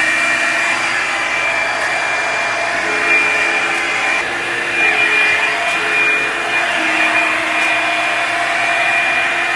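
Hair dryer running steadily, a loud rushing of air with a high whine that holds one pitch.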